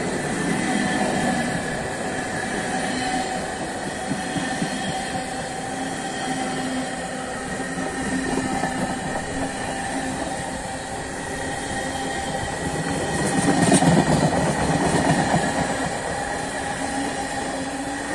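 Empty freight wagons rolling past close by: a continuous rumble and rattle of wheels on rail, with steady ringing tones over it. It grows to its loudest about three-quarters of the way through, then eases back.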